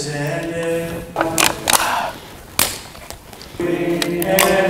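Voices chanting a sung prayer at Mass, held notes, which break off about a second in. A few sharp clicks and crackles follow, and the chanting picks up again near the end.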